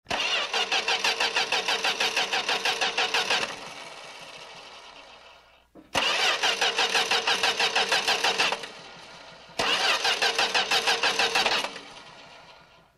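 A car's starter motor cranks the engine three times, each attempt a few seconds of even, rhythmic chugging at about four to five beats a second, and the engine never catches. The second and third attempts begin with a click, and after each the sound trails off quietly as the starter spins down.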